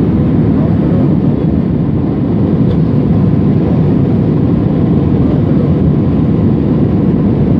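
Steady, loud, low drone of a passenger aeroplane's cabin in flight: engine and airflow noise without change.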